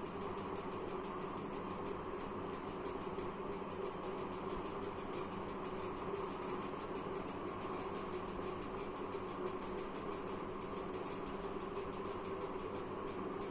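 Steady mechanical hum with a fast, even ticking, unchanging throughout.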